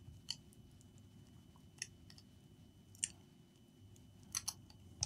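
A handful of faint, short clicks and light plastic taps from handling a laptop's LCD panel and its cable, two close together about four seconds in, over a low room hum.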